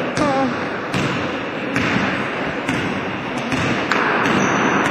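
Basketball bouncing on a wooden gym floor: a handful of separate thuds, roughly a second apart, over steady hall noise.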